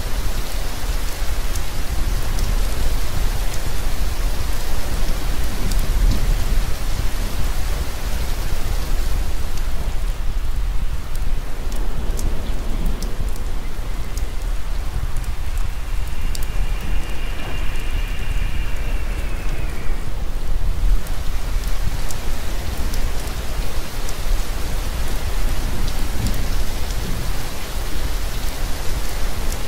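Steady heavy rain with a deep low rumble underneath. A little past the middle, a thin high tone sounds for about four seconds, arching slightly and then falling away.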